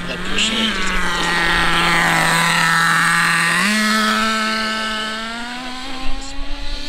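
HSP nitro RC rally car's small glow-fuel two-stroke engine at full throttle, its pitch stepping up about three and a half seconds in and then climbing slowly as the car runs close by, with a few sharp ticks near the end. It never drops in pitch for a change to second gear: the 2-speed gearbox is still not shifting despite its spring tension being loosened.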